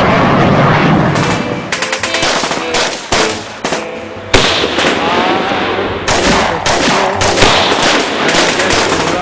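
Battle gunfire: rapid machine-gun bursts mixed with single shots, close together and overlapping, with a sudden loud bang about four seconds in.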